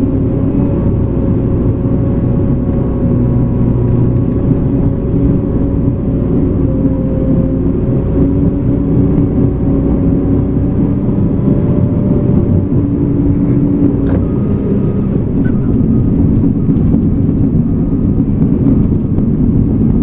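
Cat D5K2 crawler dozer's diesel engine running steadily.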